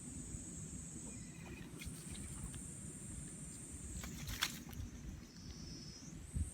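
Insects trilling steadily at a high pitch over a low outdoor rumble. The trill drops away for a couple of seconds in the middle, and a few sharp clicks or knocks come about four and a half seconds in, with a short thump near the end.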